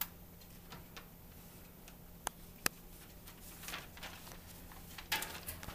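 A sheet of paper handled and rustled, with two sharp clicks a little over two seconds in and louder rustling near the end.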